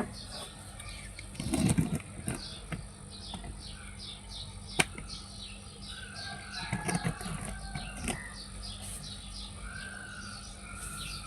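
Small birds chirping steadily in quick, short, falling notes, with a few sharp knocks.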